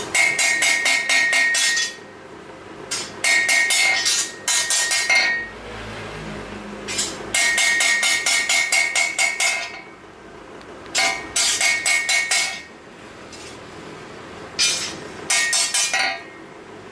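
Blacksmith's hand hammer striking a steel katana blade blank on a steel anvil while forging it, in runs of quick blows, about six a second. Each blow rings with a clear metallic ping, and short pauses fall between the runs.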